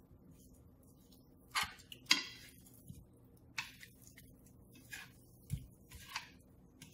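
A silicone spatula scraping and tapping against a stainless steel frying pan while tossing pieces of pork in sauce: about six short, irregular scrapes and taps, the loudest about two seconds in.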